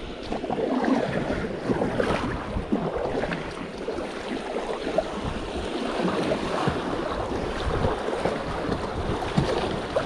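River water rushing and splashing around a kayak, with wind buffeting the microphone.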